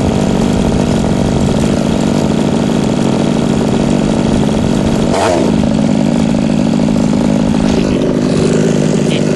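Small two-stroke engine of a radio-controlled buggy running at a steady, constant pitch, with a brief falling sweep about five seconds in.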